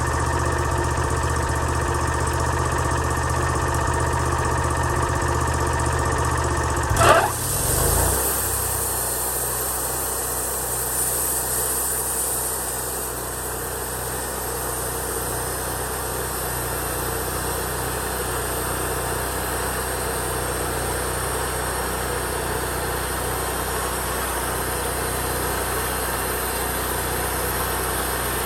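Engine idling steadily, with one loud knock about seven seconds in; after it the engine's note changes slightly and runs on steadily.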